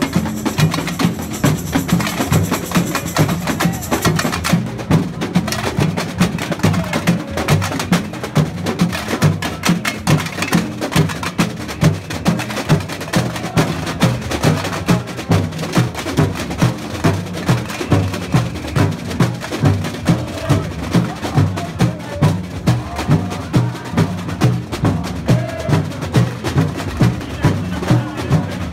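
Samba drum band (bateria) playing: large surdo bass drums beat a steady pulse about twice a second under snare drums and other percussion.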